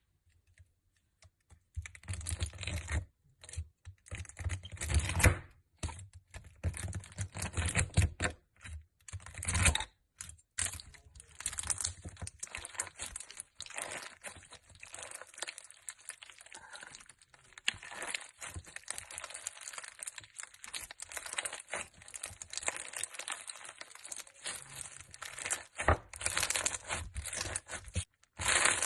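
Slime being handled, making a run of irregular crackling and popping sounds with brief pauses.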